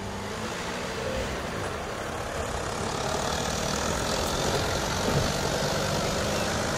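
A motor vehicle's engine running steadily, like a van or truck idling.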